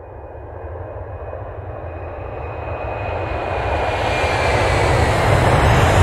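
Jet engine sound, a steady rumble and rushing noise that builds in loudness throughout, with a faint high whine on top, like a turbofan spooling up.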